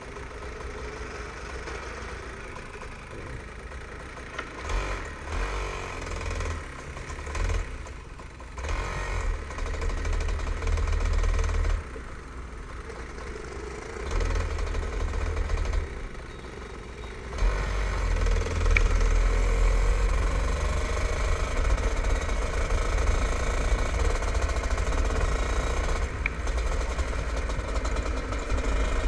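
Rotax two-stroke kart engine heard from the driver's seat: running low at first, then opened up in several short surges of throttle, and from a little past the middle held louder and steady as the kart pulls away.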